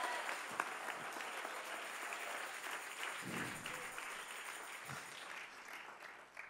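Church congregation applauding, the applause fading out near the end.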